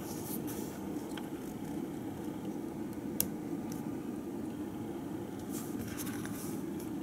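A steady low hum of room noise. Over it come small plastic clicks and rustles as a hand handles a Lego robot's canopy, with one sharp click about three seconds in.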